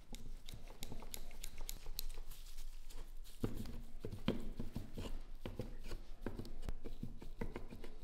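Small metal clicks and light knocks as the steel parts of a rusty K98 Mauser rifle action are handled and worked apart with gloved hands. The clicks grow denser and heavier from about three and a half seconds in.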